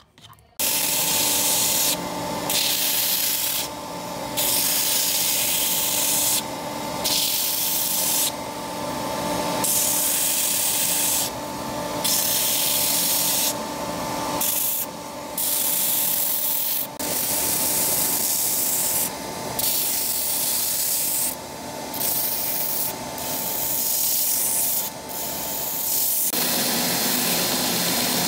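Belt grinder sanding a knife's wooden handle block and steel guard: a steady motor-and-belt hum under a loud grinding hiss. The hiss breaks off briefly every second or two as the piece is lifted off the belt and pressed back. Near the end the hum drops out while the sanding noise goes on.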